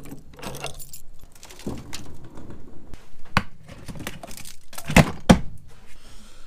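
Keys jangling and clicking in a disc padlock on a trailer door, then a run of clicks and knocks as gear is handled in the trailer. Two loud knocks come close together about five seconds in.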